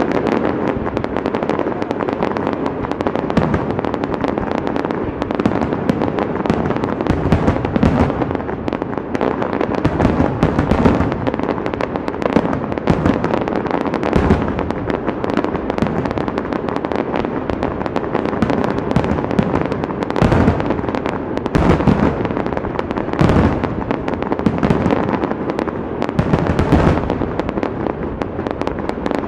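Fireworks display at full intensity: aerial shells bursting in rapid, overlapping succession, an unbroken stream of bangs and crackle with deeper booms every second or two.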